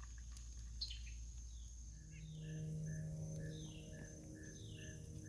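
Evening chorus of crickets and other insects, a steady high-pitched chirring. About two seconds in, a short call starts repeating about twice a second, with falling chirps about once a second and a low steady hum.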